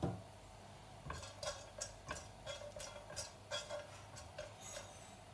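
Silicone spatula stirring whole peppercorns and cinnamon frying in a little oil in a nonstick pot: a run of light clicks, about three a second, from about a second in until near the end.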